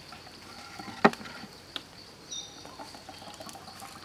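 A single sharp click about a second in as a small tin can is handled, then a fainter tick, over a faint steady high-pitched whine.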